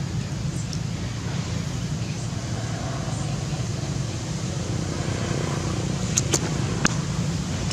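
Steady low outdoor background rumble, with three sharp clicks close together about six to seven seconds in.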